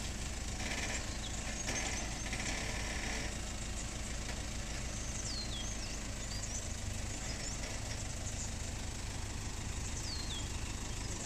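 A 4WD's engine idling steadily as the vehicle creeps down a steep rock slab.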